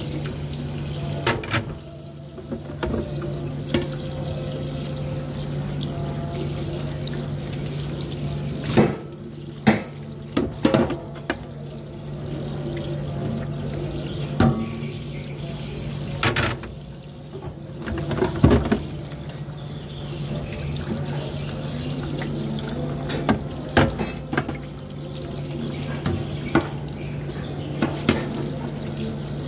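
Tap water running steadily over plates in a stainless steel sink as they are scrubbed and rinsed by hand, with sharp knocks and clatters of the plates against the sink every few seconds. A steady low hum runs underneath.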